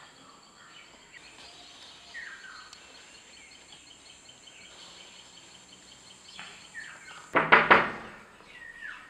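Birds chirping faintly over quiet room tone: a few short, falling chirps. Near the end, a sudden loud burst of rapid strokes.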